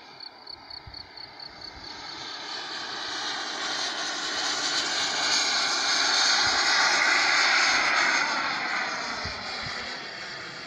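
Radio-controlled model jet's turbine making a flying pass: a rushing whine that swells to its loudest about six to eight seconds in, then fades with a falling pitch as the jet goes by.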